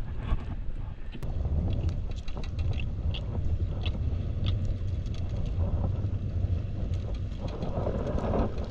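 A steady low rumble on a small boat at sea, with a few faint light clicks as a lure's hooks are worked free from a giant trevally's mouth.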